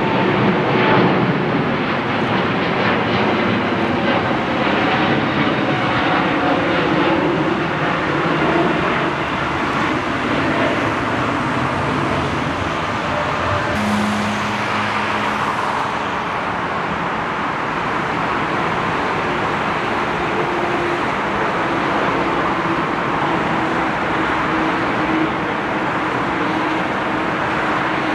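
Jet airliner engines at takeoff thrust: a steady, loud rumble. It first comes from a Boeing 777 climbing out. About halfway through it changes to the four engines of a Boeing 747 freighter on its takeoff roll.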